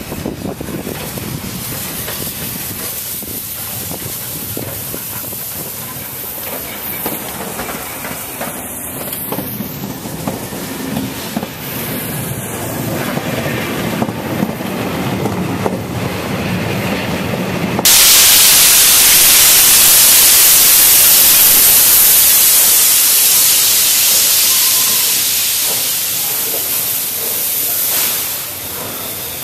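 4-6-2 steam locomotive 01 1075 and its train of coaches rolling past a platform. About two-thirds of the way through, a sudden loud, steady steam hiss from the locomotive cuts in and slowly fades.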